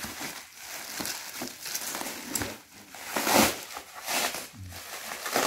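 Bubble wrap and a padded plastic mailer crinkling and rustling in irregular bursts as hands pull them off a package, the loudest rustle about three seconds in.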